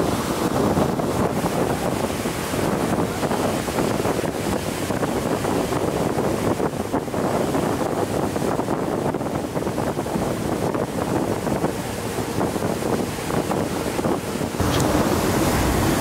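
Wind buffeting the microphone over the steady rush of water along a moving boat. About a second and a half before the end, the sound changes abruptly to a louder, fuller rush with more low rumble.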